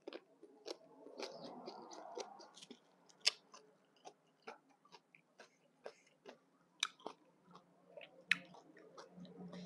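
Close-up chewing of a mouthful of shredded green papaya salad and rice noodles. Irregular wet mouth clicks and smacks come every half second or so, with a few sharper ones standing out.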